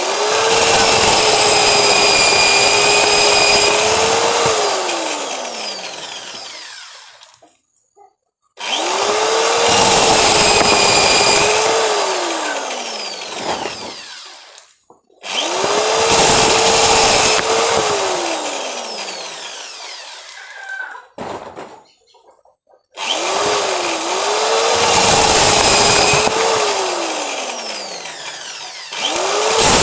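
Cordless drill-driver stripping kernels off corn cobs: the motor spins up and runs with a dense rattle of kernels for a few seconds, then winds down with falling pitch. This happens about four times, with short pauses between.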